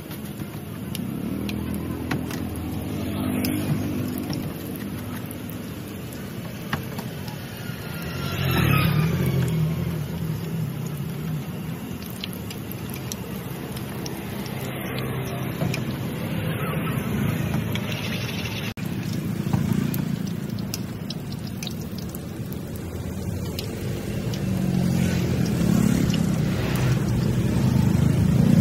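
Street traffic, motorbike and car engines passing, swelling twice, about a third of the way in and again near the end, over a steady sizzle of dough deep-frying in oil in a wok.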